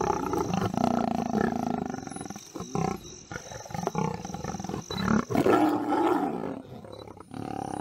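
Lions growling and snarling at close range as they hold down and feed on a hippo, in two long bouts with a short lull between.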